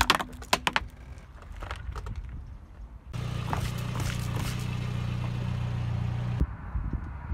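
Hard plastic cracking and snapping as a car tyre crushes a toy tool case, in the first second. About three seconds in, a car engine hums steadily under a rushing spray as the tyre bursts milk cartons; it cuts off abruptly near the end.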